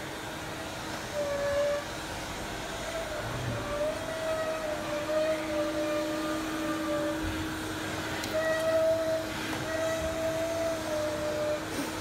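Vacuum cleaner running with a steady hum, and a whistling tone from its hose that shifts between a few pitches, breaking off and starting again every second or so.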